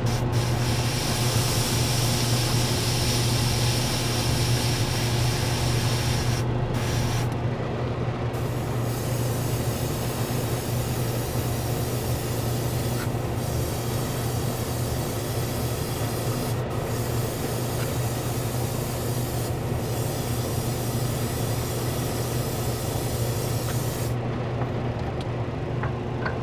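Airbrush spraying paint with a steady hiss, a blending coat sprayed at raised air pressure. The trigger is let off briefly a few times, and the spraying stops near the end. A steady low hum runs underneath.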